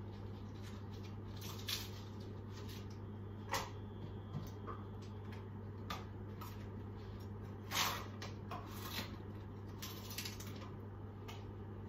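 Cabbage leaves being peeled off the head and handled on a wooden chopping board: scattered crisp crunches, rustles and light knocks, the largest about three and a half and eight seconds in, over a steady low hum.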